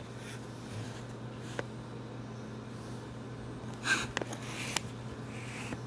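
French bulldog snorting once, about four seconds in, over a faint steady low room hum, with a few small ticks.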